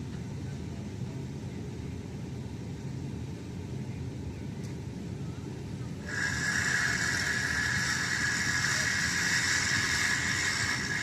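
Heavy construction machinery running with a steady low engine rumble. About six seconds in, a louder, higher-pitched whirring hiss suddenly starts and keeps on over the rumble.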